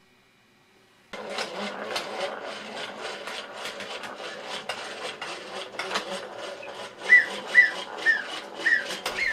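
Mr. Machine clockwork wind-up robot toy running, starting about a second in: a steady clatter of gears with a sharp click about twice a second. Near the end, five short high falling tones come about half a second apart.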